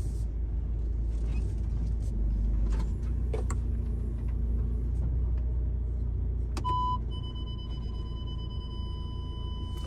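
Steady low rumble of a 4x4 crawling over a rough bush track, heard from inside the cabin, with a few knocks. About two-thirds of the way through, the parking sensors give a short beep and then a steady warning tone that holds: an obstacle is close to the vehicle.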